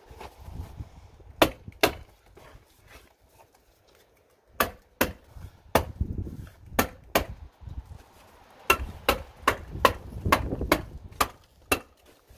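Hammer strikes tacking 30-pound felt paper to a wall, sharp single blows: two about a second and a half in, a few scattered ones, then a quick run of about eight near the end at two to three a second.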